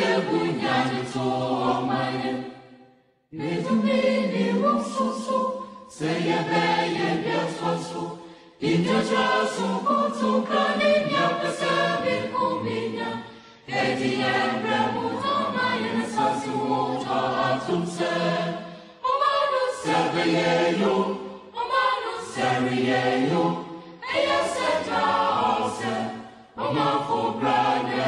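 A choir singing, in phrases a few seconds long with short breaks between them.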